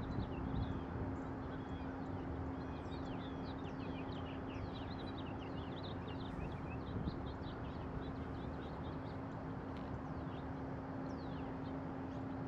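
A flock of American goldfinches twittering: many quick, high chirps in rapid succession. They sit over a steady low hum and a constant rush of background noise.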